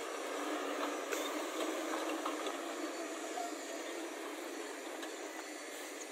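Tata tipper truck driving away over a rough dirt track, its engine running and its body rattling, growing slightly fainter as it pulls away.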